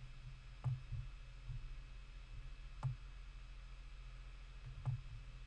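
Computer mouse clicking: three sharp clicks about two seconds apart, with a few softer knocks between, over a steady low hum.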